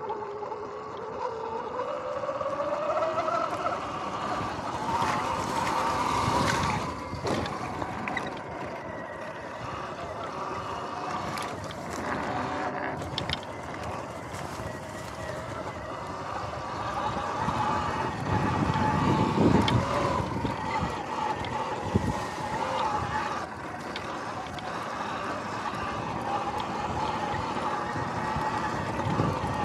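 Sur-Ron X electric dirt bike riding over grass, dirt and mulch. The motor's whine rises in pitch over the first few seconds, then holds with small ups and downs over tyre and ground noise. A few knocks and thumps come as the bike goes over bumps, loudest about two-thirds of the way through.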